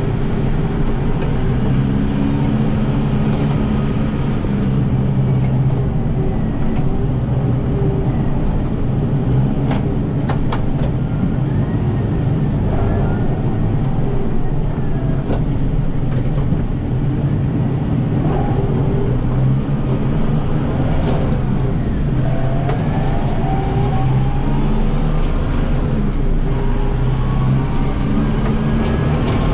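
Kubota M7060 tractor's diesel engine running steadily while it drives an 80-inch Pronovost snowblower. A few light clicks and brief rising and falling whines sit over the hum.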